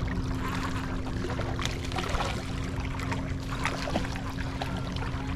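Lake water sloshing and splashing at the shoreline, with many short, scattered splashes and clicks, over a steady low hum.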